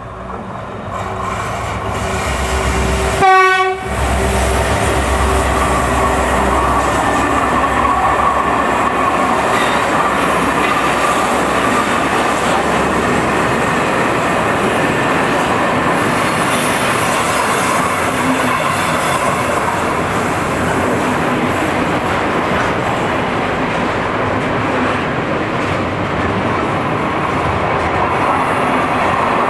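Diesel freight locomotive passing with a short horn blast about three and a half seconds in and its engine rumbling for the first few seconds, then the steady rolling rumble and clatter of a long train of container and tank-container wagons going by.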